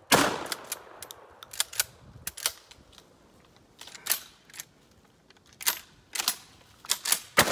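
Two 12-gauge shotguns, a semi-automatic Citadel Warthog and a pump-action, firing light target loads at a target: about six sharp shots spaced irregularly, three of them in quick succession near the end, with smaller clicks and knocks between them.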